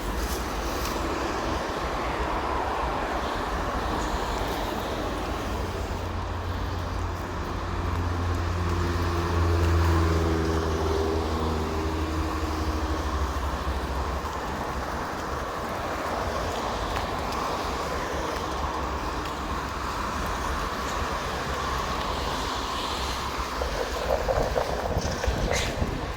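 Small boat motor running steadily with wind and water noise, its drone swelling briefly about ten seconds in; a few knocks near the end.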